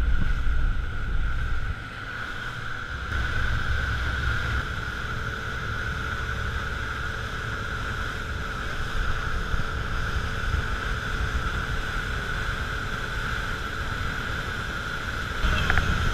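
Speedboat running at speed: engine with a steady high whine, water rushing past the hull and wind on the microphone. The level drops about two seconds in, picks up again a second later and rises near the end.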